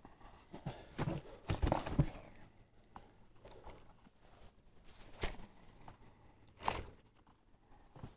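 Close handling noise of hands and fishing tackle: rustling and soft knocks as a soft-plastic jig lure is fingered and a spinning rod and reel are picked up. A cluster of knocks comes about one to two seconds in, then two single sharper knocks later on.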